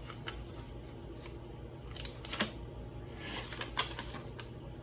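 Light handling of packaging and a paper instruction leaflet: scattered small clicks and rustles, busiest in the second half, over a faint steady hum.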